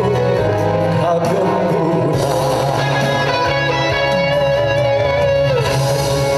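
Song backing music with a guitar playing a gliding melody over a steady bass line, played loud through a stage sound system.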